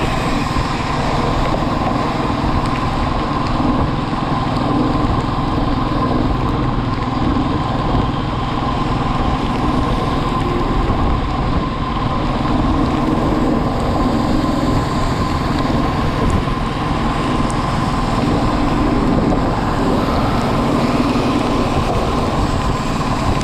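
Motorcycle running steadily under way, its engine beneath a continuous rushing noise of the ride.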